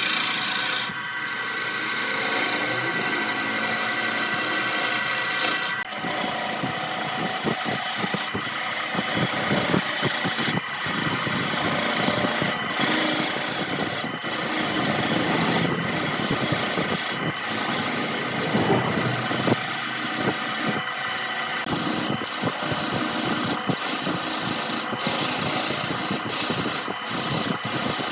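Turning gouge cutting a spinning wooden cylinder on a wood lathe: a continuous rasping scrape of wood being shaved, over the steady hum of the lathe's electric motor. From a few seconds in, the scraping breaks off in short gaps about once a second.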